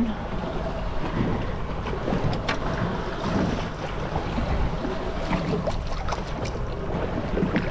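Wind buffeting the microphone over choppy sea water slapping against a boat's hull: a steady rushing noise with a low rumble and a few faint ticks.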